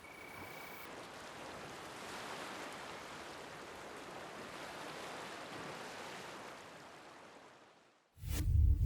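Steady wash of sea surf that slowly fades out. Near the end a sudden deep boom cuts in as music begins.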